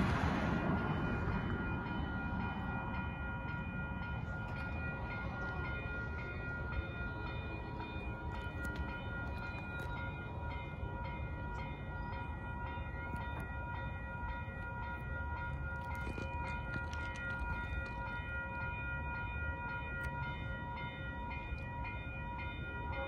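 Railroad crossing warning bell ringing steadily while the crossing lights flash and the gates are down, over a low rumble. A car passing over the crossing fades out in the first second or two.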